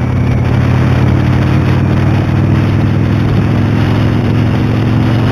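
Motorcycle engine running at a steady note, with the higher part of its sound falling away near the end.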